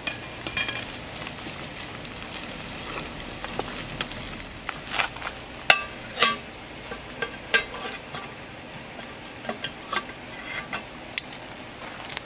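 Chopped vegetables sizzling in a frying pan over a small wood-fired folding firebox stove. Sharp metal clinks and scrapes scattered throughout, the loudest about six seconds in, as the pan is stirred with a fork and a metal lid is set on it.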